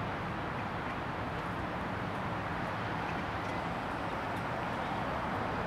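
Steady urban street background noise: an even, low hum with no distinct events.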